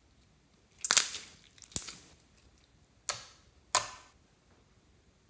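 Clear glitter slime being stretched and let go into a glass dish, giving four sharp pops spread over about three seconds, the first the loudest.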